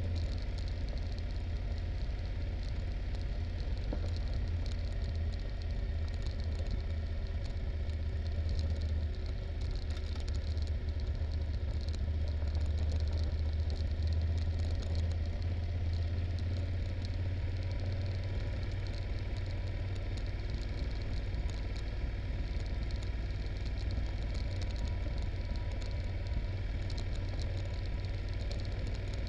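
Yamaha Super Ténéré's parallel-twin engine running at low revs as the motorcycle rolls slowly down a rough gravel track, a steady low rumble with small rattles and ticks from the bike over the stones.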